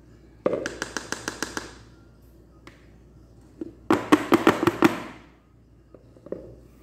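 Metal springform cake pan full of batter rapped quickly against a tiled counter: two runs of about seven or eight sharp knocks each, a few seconds apart.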